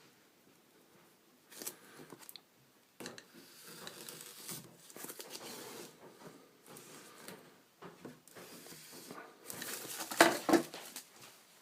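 Plastic shrink-wrap being torn and crinkled off a boxed iPad, in irregular rustling bursts, loudest about ten seconds in.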